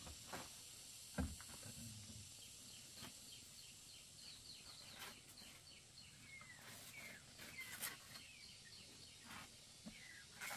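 Faint birds chirping in many short repeated calls, with a few gliding whistles, over a soft hiss; a dull knock about a second in and a few scattered clicks.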